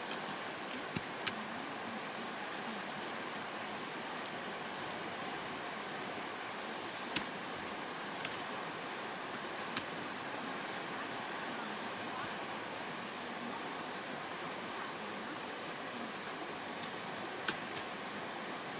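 Steady rushing of a small stream flowing over rocks, with a few scattered sharp clicks of hoes striking the ground.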